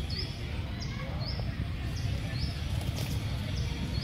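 A steady low rumble with a small bird repeating a short high rising chirp over and over, a little under twice a second.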